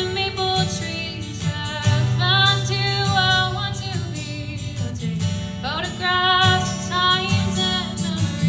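Live band music: a woman singing over guitar and bass, with vibrato on the held notes.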